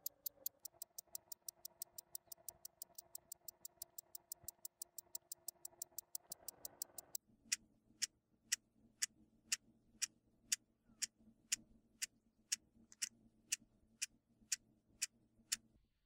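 Clock ticking, fast at about six ticks a second, then slowing to about two ticks a second some seven seconds in, over a faint low steady hum.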